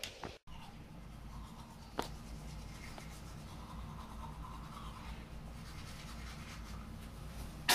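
Manual toothbrush scrubbing teeth, a faint steady scratchy brushing over a low hum. A sharp click near the end is the loudest sound.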